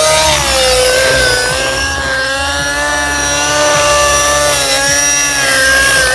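Align T-Rex 600N nitro RC helicopter in flight, its two-stroke glow engine and rotor running at high speed with a loud, steady whine. The pitch dips and rises slightly as the throttle changes.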